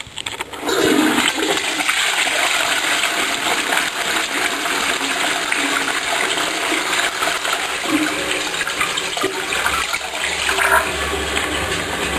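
Toilet flushing: a steady rush of water swirling into the bowl, beginning about half a second in.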